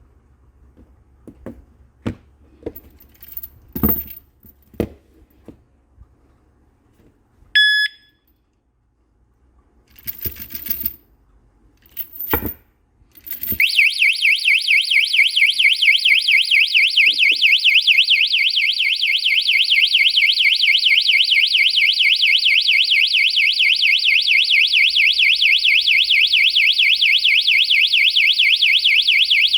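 Mito alarm padlock handled with clicks and knocks, then one short beep. After more handling its built-in alarm goes off about halfway through: a loud electronic siren warbling rapidly up and down, held steady.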